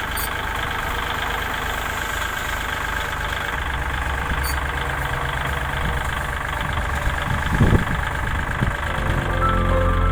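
Toyota Revo pickup truck's engine idling steadily, with a few short thumps about three quarters of the way through.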